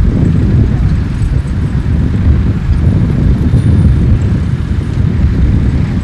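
Wind buffeting the microphone: a loud, irregular low rumble that covers everything else.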